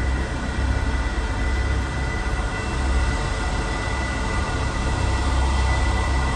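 Sci-fi UFO hover sound effect: a heavy, steady low rumble that swells and ebbs unevenly, with thin steady high tones ringing over a hiss.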